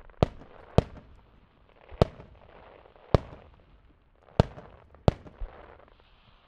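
Aerial firework shells bursting overhead: six sharp bangs at uneven intervals, between half a second and just over a second apart, with a fainter hiss between them.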